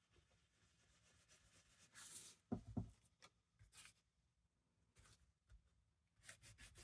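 Distress Oxide ink being rubbed through a stencil onto paper: faint, scattered swishes and rubbing strokes, with a soft thump about two and a half seconds in and a quick run of short strokes near the end.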